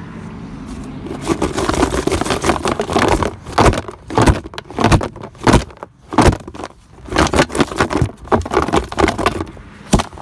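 Toy snakes being shaken around inside a cardboard box: irregular rattling, scraping and sharp knocks against the cardboard, starting about a second in and stopping just before the end.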